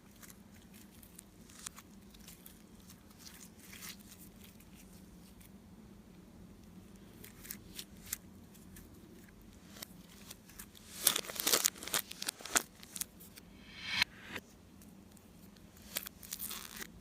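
Slime being squeezed and stretched by hand, giving scattered sticky clicks and crackles. They come thickest and loudest between about eleven and thirteen seconds in, and again near the end.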